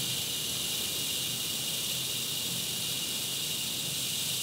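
Loring S-15 coffee roaster running: a steady airy hiss of its circulating hot air, with a faint low hum underneath.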